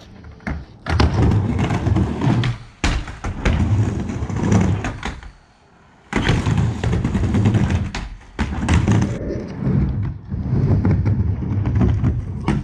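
Skateboard wheels rolling on a plywood mini ramp, a steady low rumble broken by sharp clacks and thuds as the board hits the ramp and coping. The rumble drops away briefly about five seconds in.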